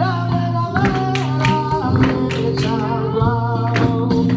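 Flamenco garrotín music: a singer holding long, wavering lines over strummed flamenco guitar, with sharp strokes on the beat.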